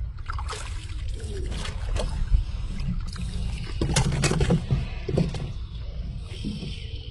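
Water sloshing and splashing irregularly, with a cluster of sharp knocks about four seconds in.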